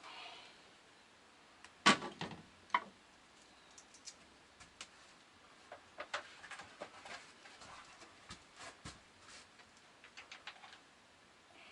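Irregular clicks and knocks from small hard objects being handled, with two louder knocks about two seconds in and light tapping and ticking after.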